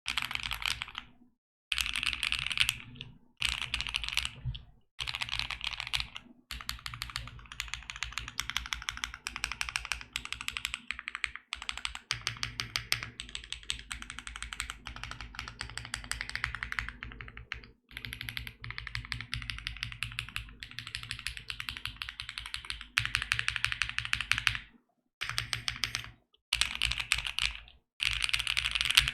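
Fast typing on a mechanical keyboard fitted with BSUN Dream linear switches, a polycarbonate plate and no case foam: dense runs of keystrokes with a deeper-pitched, marbly clack, broken by brief pauses.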